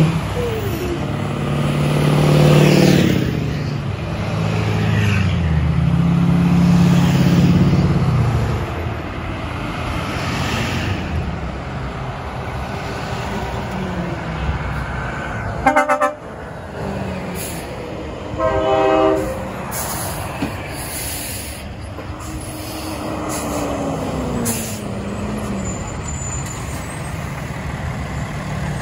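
A line of tow trucks driving past one after another, their engines swelling and fading as each goes by. Two short horn blasts sound near the middle.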